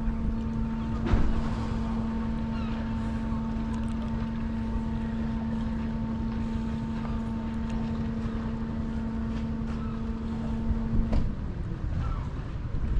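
The Whitby swing bridge's drive motor humming steadily at one pitch over a low rumble as the bridge swings closed, then switching off about eleven seconds in. A single knock sounds about a second in.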